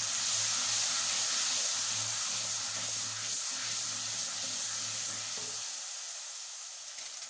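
Water just added to hot oil and spice masala in a clay handi, sizzling and hissing as it steams, slowly dying down while it is stirred. It is splashed in so the masala does not burn during frying. A low steady hum runs under it and stops about two-thirds of the way through.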